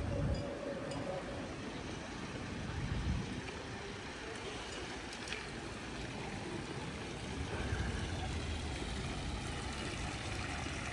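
Water from a stone fountain's jets splashing into its basin, over steady street noise with a few low rumbles.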